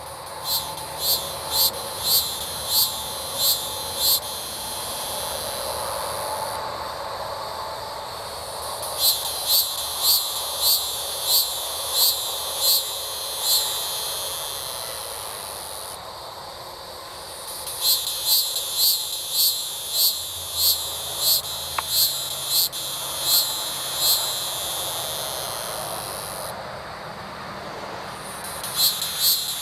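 Male hieroglyphic cicada (Neocicada hieroglyphica) calling: a high buzz punctuated by loud, evenly spaced pulses about one and a half a second. It comes in bouts of four to seven seconds, with pauses of a few seconds between them, four bouts in all.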